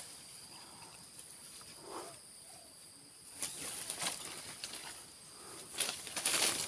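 Steady high-pitched insect drone, with a run of rustling, scraping handling noises starting about three and a half seconds in and again near the end.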